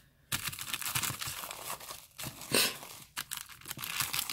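Plastic bubble-wrap packing crinkling and crackling as a hand presses and peels it back, with a louder crackle about two and a half seconds in.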